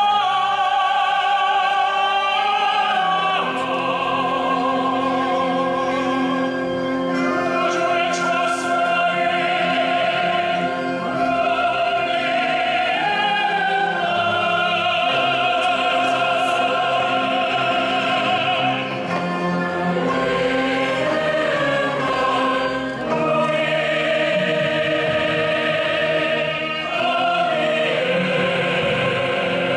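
Live concert music: a singer in operatic style holds long notes with wide vibrato over a military band's orchestral accompaniment, with a choir joining in.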